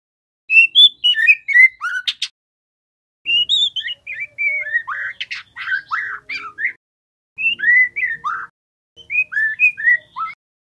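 Juvenile white-rumped shama singing in four short bouts of quick whistled notes that swoop up and down, mixed with a few brief harsh notes, each bout broken off by a pause of total silence.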